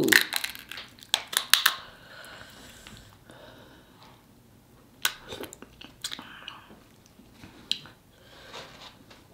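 King crab knuckle shell cracking and snapping as it is pulled apart by hand, in a quick run of crunches at the start and again about a second in. Scattered single cracks and crunches follow.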